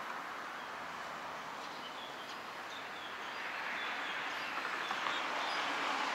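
City street traffic noise, a steady rush of passing vehicles that grows louder about halfway through as a vehicle approaches. A few faint bird chirps sound over it.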